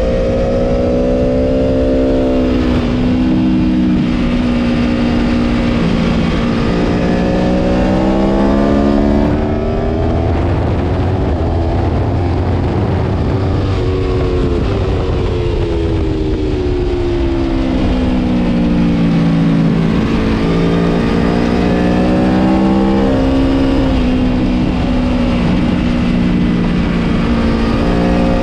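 Aprilia Tuono V4 Factory's V4 engine under racing load, its pitch climbing through the revs and dropping sharply at each upshift, with a long slowdown in the middle before it accelerates hard again. Heavy wind rush runs under the engine note.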